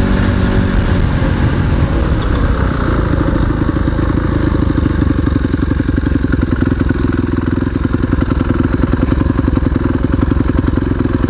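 250 cc single-cylinder off-road motorcycle engine running while riding along, heard from the rider's own bike; the engine note shifts in the first few seconds, then holds steady.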